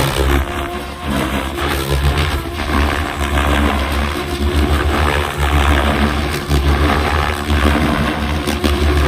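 SAB Goblin 700 electric RC helicopter flying aerobatics: the main rotor blades whooshing and the electric motor whining, the sound rising and falling in level as the helicopter swoops and flips.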